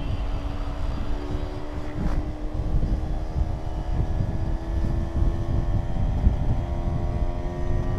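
Vespa scooter engine running steadily at cruising speed, a constant drone with little change in pitch, under heavy low wind rumble on the microphone.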